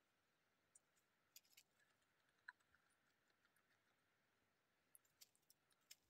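Near silence, with a few faint, scattered clicks.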